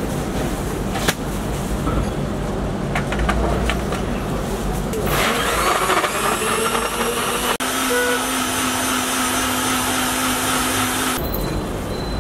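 Electric blender running at speed and blending a milkshake: it starts about five seconds in, runs for about six seconds with a steady motor whine, and cuts off abruptly. Before it come light clicks and knocks as the jar is set in place, over a low background hum.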